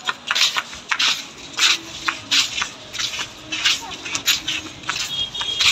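Footsteps scuffing on a gritty, sandy street, a short crisp scrape about twice a second, at a walking pace. Faint voices underneath.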